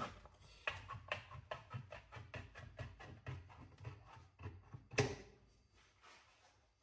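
Red-handled left-cut aviation snips cutting sheet metal, a quick run of short crunching snips about four a second, ending in one sharper, louder click near the end.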